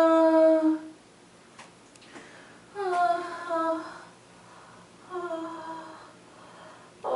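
Long drawn-out vocal notes: one held note that stops about a second in, then two shorter notes around three and five seconds in, each stepping down in pitch.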